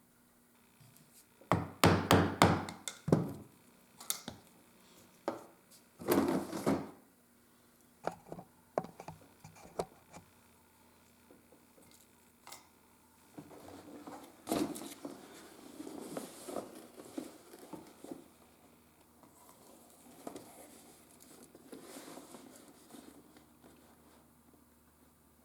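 Leather and hand tools being handled on a wooden workbench. First come two loud bursts of knocking and clatter, then a few scattered clicks, then a longer stretch of rubbing and scraping on the leather.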